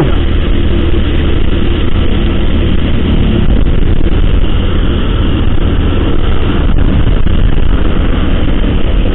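Honda motorcycle riding steadily at road speed: its engine runs under a loud, even rush of wind noise on the microphone.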